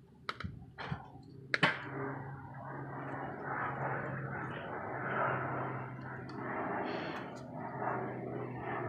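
Handling noise from gloved hands fitting the throttle cable and fuel line onto a lawnmower carburetor: three sharp clicks in the first two seconds, the loudest about one and a half seconds in, then continuous rubbing and rustling over a steady low hum.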